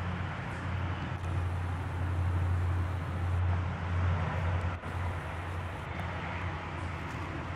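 Steady low machine hum with an even wash of noise over it, dipping briefly about five seconds in.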